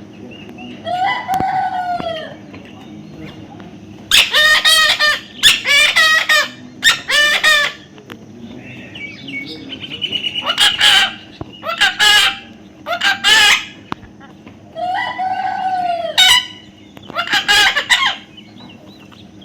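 A bird calling loudly again and again: about nine harsh, pitched calls, each up to a second or so long and bending in pitch, some in quick runs of two or three.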